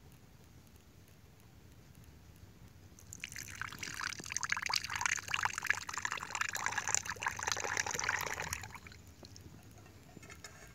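Hot goat-milk tea poured in a thin stream from an aluminium saucepan into a coconut-shell cup. The pour starts about three seconds in and runs for about six seconds before stopping.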